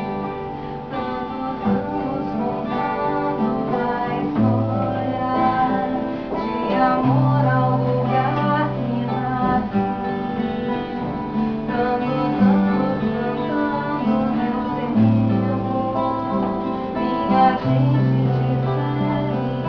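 Two acoustic guitars playing together live, one of them a Brazilian seven-string guitar (violão de sete cordas) adding low bass notes under the strummed and plucked chords.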